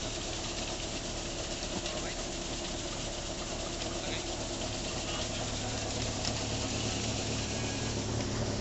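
Multi-crop grain cleaner running: a steady mechanical hum from its drive, fan and shaking sieves over a broad rushing noise of grain moving through the machine, growing a little louder near the end.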